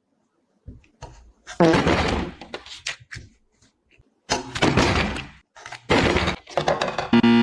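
A run of loud crashing impacts, four big ones a second or two apart, each trailing off, with smaller knocks between them.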